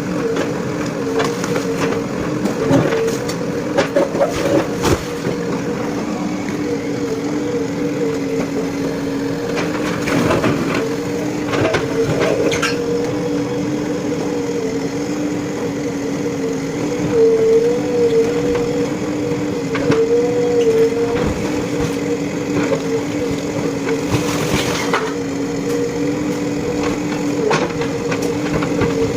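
JCB 3DX backhoe loader's diesel engine running steadily under load, its pitch lifting briefly a few times, with scattered knocks and cracks of debris being broken and shifted during demolition.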